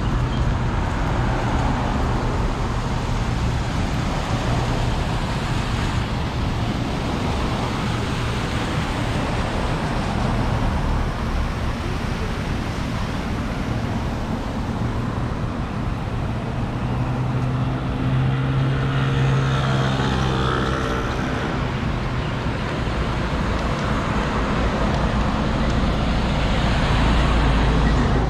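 Road traffic on a busy city street: a steady wash of passing cars' engine and tyre noise. One louder vehicle engine passes about two-thirds of the way through.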